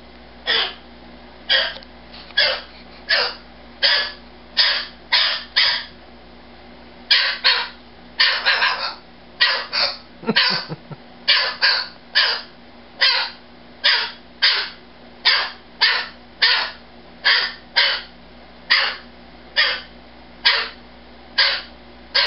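Umbrella cockatoo screaming over and over, short harsh screeches roughly one to two a second, with a brief pause about six seconds in and a denser run around eight seconds in. Crest raised: the screaming of an agitated cockatoo demanding attention.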